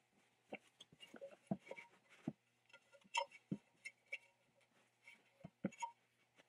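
Irregular light knocks, clicks and rubbing from handling a band saw wheel while a rubber tire is stretched onto its metal rim.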